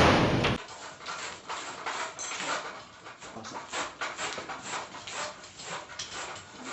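A power drill running through plywood stops abruptly about half a second in. After it, faint quick breathy noises repeat about three or four times a second.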